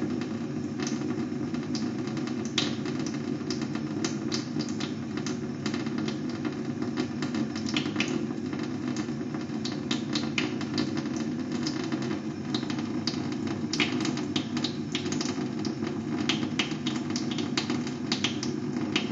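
Water tap running steadily: a constant rush of flowing water with many irregular sharp splash ticks on top.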